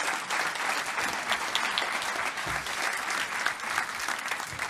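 Audience applauding, many people clapping steadily, easing off slightly near the end.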